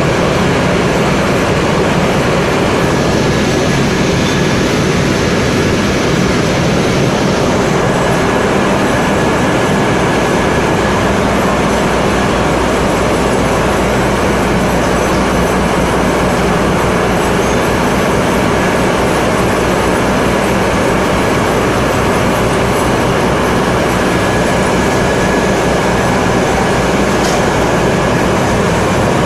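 Flour packing machine and the surrounding flour mill machinery running: a loud, steady mechanical din with a thin, steady high whine over it.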